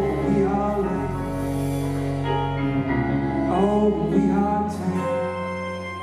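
Live band music: held chords on electric keyboard and steel guitar over drums and bass, with wavering sustained notes, easing down about five seconds in.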